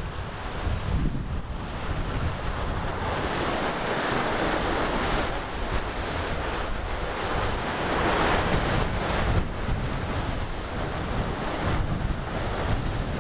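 Ocean surf breaking and surging against the foot of a rock sea cliff, swelling louder about 4 and 8 seconds in, with wind buffeting the microphone.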